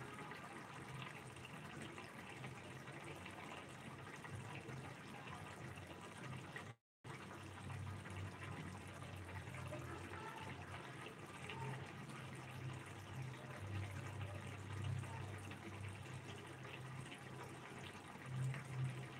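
Thick onion-tomato curry gravy simmering in a frying pan, bubbles popping in a steady stream of small pops, over a low steady hum. The sound cuts out for a moment about seven seconds in.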